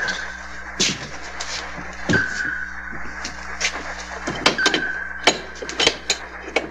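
Sonar pings from a hunting destroyer: a single high ping about every two and a half seconds, each ringing briefly, over a low steady hum. Scattered sharp clicks run through it.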